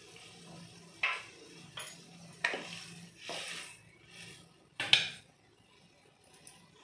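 A spoon knocking and scraping against a nonstick kadai while stirring a thin gravy: about five short clinks spread over a few seconds, the loudest about five seconds in.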